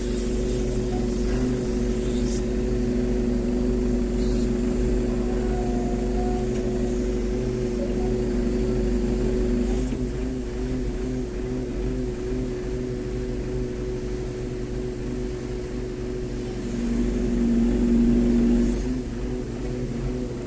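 Crane engine running steadily with a low drone, growing louder for a couple of seconds near the end before easing back.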